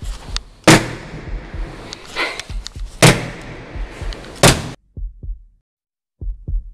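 Three loud, sharp bangs about a second and a half apart, over a low rumble. About five seconds in the sound cuts to dead silence, and a few soft knocks follow near the end.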